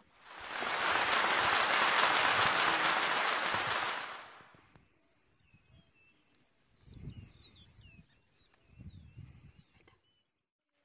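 A loud, even rushing hiss swells in, holds for about four seconds and fades away. Then small birds chirp in the background, with a couple of low bumps.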